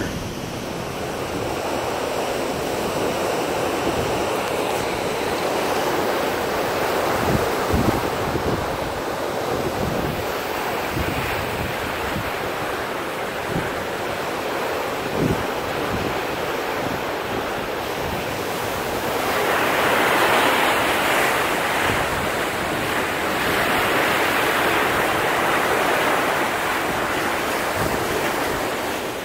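Wind blowing and buffeting on the microphone over the steady rush of the sea alongside a moving cruise ship. The rush swells louder twice in the last third.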